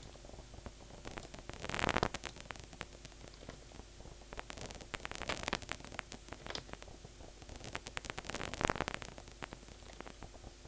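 Synthesized crackle from a Vital soft-synth patch built to imitate paper crumpling: dense, irregular clicks and crackles over a steady hiss. It sounds much like vinyl crackling, with louder clusters of crackle about two seconds in and again near nine seconds.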